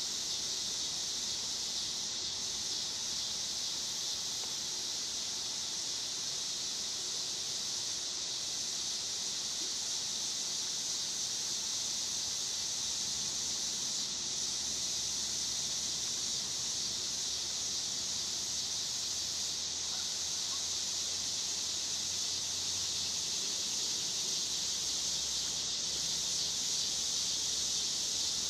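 Steady, high-pitched drone of an insect chorus that holds level throughout, with no heron call.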